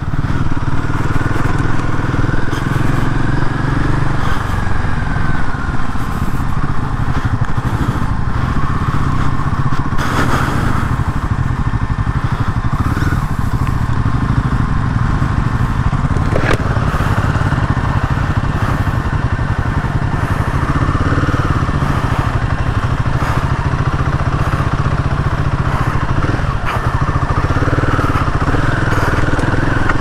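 Royal Enfield Himalayan 450's single-cylinder engine running steadily as the motorcycle rides a rough off-road trail, with a couple of sharp knocks partway through.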